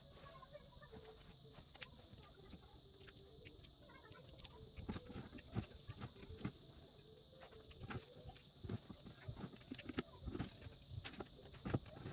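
Irregular light clicks and taps, becoming more frequent and louder after about four seconds, with faint chicken clucking in the first few seconds.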